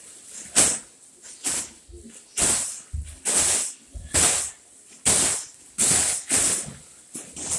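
Large gold foil number-3 balloon being punched over and over, each hit a short crinkly rustle of the foil, about eight in a row at roughly one a second.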